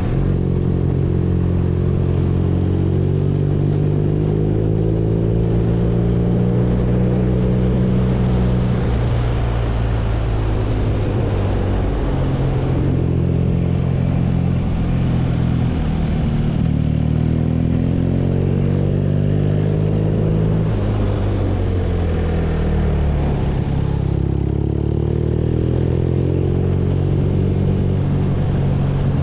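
BMW R nineT's 1170 cc air/oil-cooled boxer twin running under way, its pitch holding steady for several seconds, dropping about nine seconds in, then rising and falling again with throttle and road speed, over a steady rush of wind and road noise.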